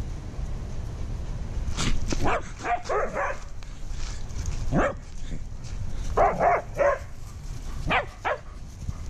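Dogs barking and yipping at play, in several short clusters of calls.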